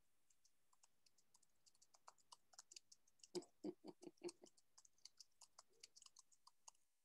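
Faint computer keyboard typing: scattered soft key clicks, with a quick run of heavier keystrokes about three to four seconds in.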